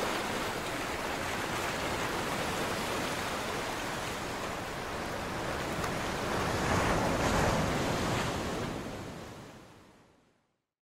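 Ocean surf washing in as a steady rush, with one wave swelling louder, then fading out to silence near the end.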